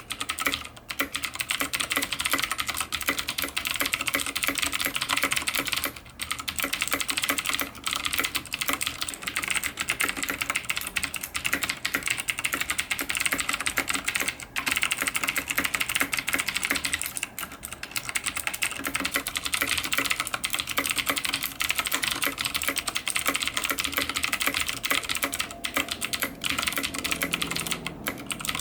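Cooler Master QuickFire XT mechanical keyboard with Cherry MX Blue switches being typed on fast and continuously: a dense stream of sharp key clicks, with a few brief pauses.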